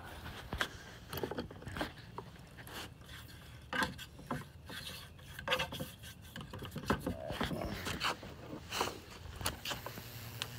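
Handling noise: irregular scrapes, rubs and light knocks, spaced unevenly, likely from the bamboo and electrodes being moved into a new position.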